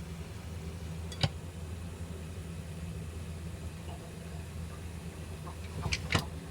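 Steady low hum, with one sharp click about a second in and two or three clicks close together near the end.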